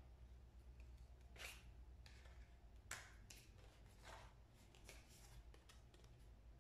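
Faint snips of scissors cutting through a paper plate, a handful of irregular cuts over a low steady hum.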